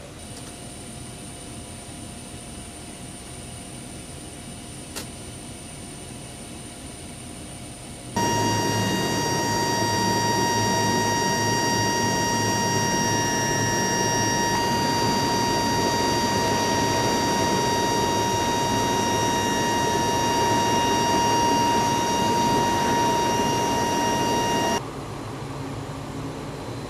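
C-130 Hercules turboprop aircraft noise heard from the cargo hold, in three cut-together blocks. A moderate steady hum with a faint high whine gives way about eight seconds in to a sudden, loud, steady engine noise with a piercing high whine. Near the end it cuts abruptly to a quieter hum.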